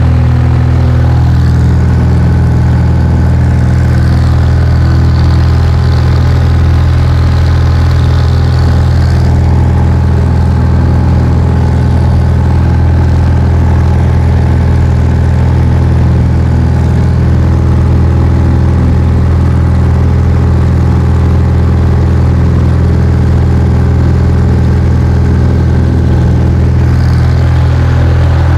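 Cessna 172B's six-cylinder Continental O-300 engine and propeller running steadily at climb power during the climb-out after takeoff, heard from inside the cabin as a loud, even drone.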